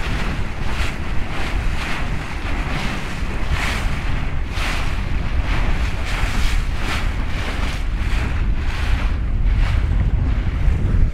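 Strong wind buffeting the microphone, with a low rumble, over choppy sea rushing and splashing against a small boat's hull in repeated short surges.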